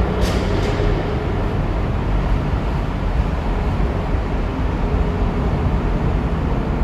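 Jaguar F-Type V8 running steadily at a light, even throttle while driving: a deep, constant low rumble mixed with road noise.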